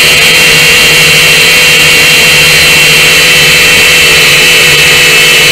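Small drone's electric motors and propellers running steadily, heard up close from its onboard camera: a loud, constant high whine over a lower hum and rushing air.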